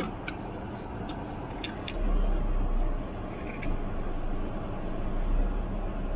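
Car driving, heard from inside: a steady low engine and road rumble that swells about two seconds in and again later, with a few light clicks in the first two seconds.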